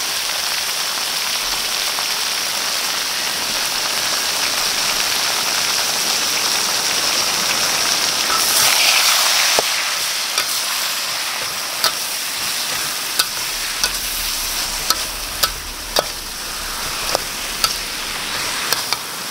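Chicken and rubber-tree leaves sizzling in a hot wok while a metal spatula stirs them, with a steady frying hiss. From about halfway through, sharp clicks of the spatula knocking and scraping against the wok come every second or so.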